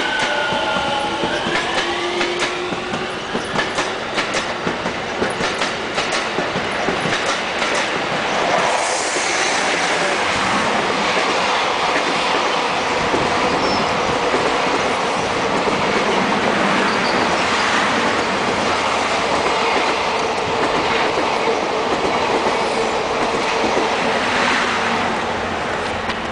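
An E231-series electric train's motors give gliding tones as it runs past. Then the Fuji/Hayabusa sleeper express's blue passenger coaches pass at speed, steel wheels clacking over rail joints and rumbling on the rails. The noise eases slightly near the end.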